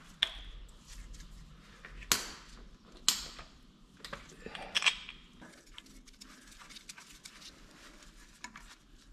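Metal engine parts and hand tools clinking and clanking as they are handled during an engine teardown, with a few sharp knocks about 2, 3 and 5 seconds in.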